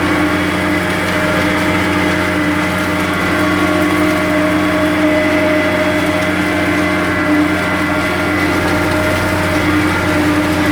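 Tractor's diesel engine running steadily under load, pulling a plough, a constant loud drone that holds its pitch throughout.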